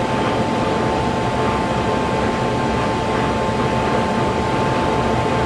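A steady mechanical drone with a constant whine in it, unchanging throughout.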